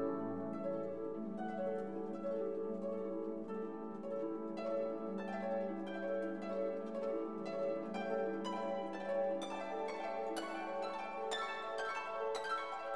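Background instrumental music: a plucked-string melody over held low notes, with the notes coming thicker and brighter in the second half.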